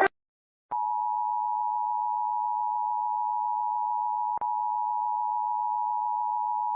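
Emergency alert attention tone: one long, steady electronic beep at a single pitch that starts after a short moment of silence, with a brief click partway through. It signals the start of an emergency broadcast message.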